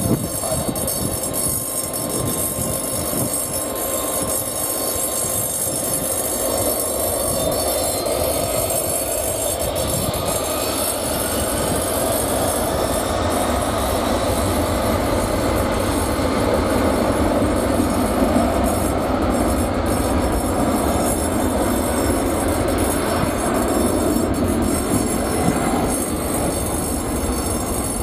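KDC-10 tanker's three General Electric CF6-50 turbofan engines spooling up to takeoff power: a steady jet rumble, with a whine that rises in pitch from about a third of the way in as the aircraft starts its takeoff roll.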